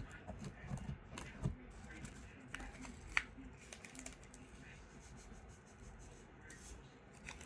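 Hands squishing and stretching slime, giving scattered small clicks and crackles, with one sharper click about three seconds in.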